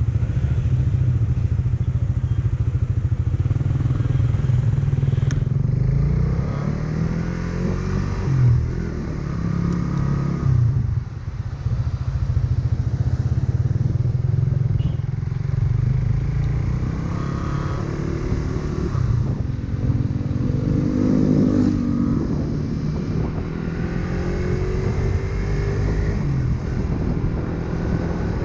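Onboard sound of a 150 cc single-cylinder underbone motorcycle being ridden: the engine pulls with its pitch rising several times as it accelerates through the gears, over a heavy steady low rumble.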